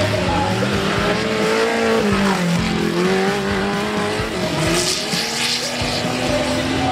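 Off-road competition jeep engine revving hard, its pitch falling and rising as the throttle is worked, with a burst of hiss around five seconds in.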